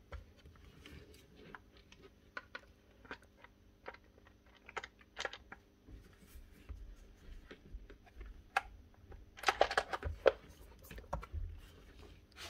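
Plastic housing halves of a Makita DUH502 cordless hedge trimmer being handled and pressed together on the bench: scattered light clicks and knocks, with a busier run of clicks about ten seconds in.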